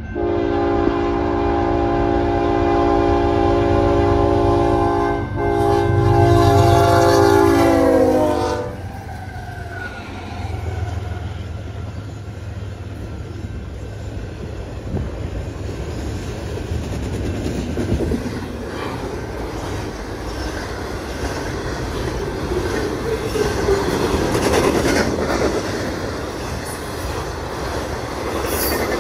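Freight locomotive air horn sounding for a grade crossing: a long blast, a brief break, then another blast that drops in pitch as the locomotive passes about eight seconds in. After it, the steady rumble and clickety-clack of a fast intermodal train's trailer-carrying cars rolling by.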